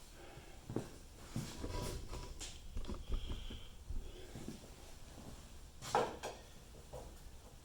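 Scattered clicks, scrapes and knocks of hand tools working on a car's door sill plates as their screws are loosened, with the sharpest knock about six seconds in.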